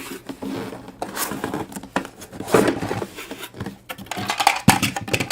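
A cardboard toy box being opened and its plastic pieces handled, with repeated small clicks and clatters of hard plastic and some rustling.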